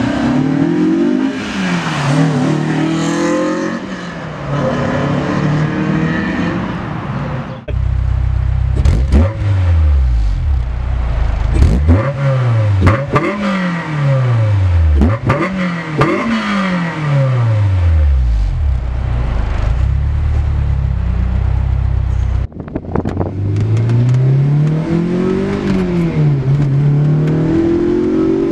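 Honda S2000 four-cylinder engine through a Fujitsubo Legalis R Type S exhaust, revving again and again with the pitch rising and falling. It comes in three takes separated by abrupt cuts, the middle one a deeper rumble with quick rev blips.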